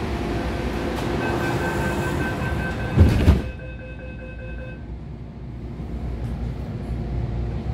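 MTR A-Train electric multiple unit braking into a platform: rolling noise with a steady whine from the train, a loud double thump about three seconds in, then the rolling noise drops away as the train comes to a stop. The whine fades out shortly after, leaving a low hum inside the car.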